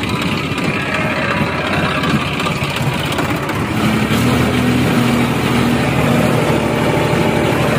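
New Holland 3510 35 hp tractor's diesel engine running under load, pulling a 10-foot rotavator through the soil. About halfway through, the engine note steadies and grows a little louder.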